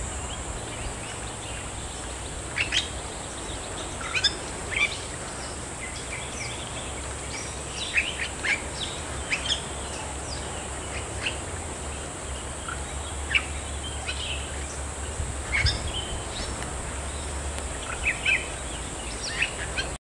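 Bali starling giving short, sharp calls, about a dozen spaced irregularly, over a steady high-pitched hum.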